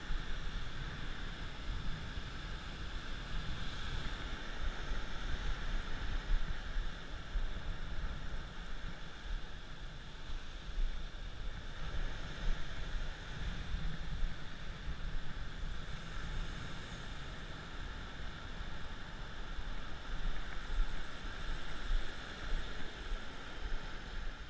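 Ocean surf washing and foaming up a sandy beach, a steady rushing wash, with wind rumbling on the microphone.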